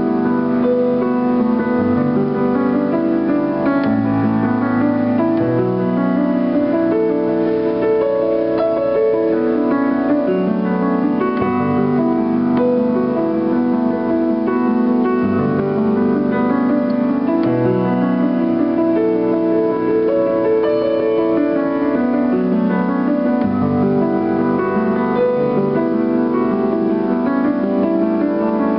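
Piano improvising a tune: full chords held in both hands, with bass notes moving under them every second or two, at a steady level.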